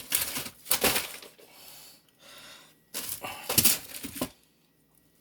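Handling noise as a dish and frozen items are shifted around in a freezer: rustling and knocks in short bursts, in the first second and again about three seconds in.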